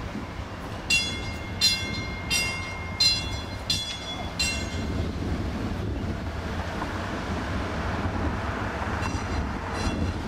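Streetcar bell struck repeatedly, about six rings spaced under a second apart, then a few fainter ones near the end, over a steady low rumble.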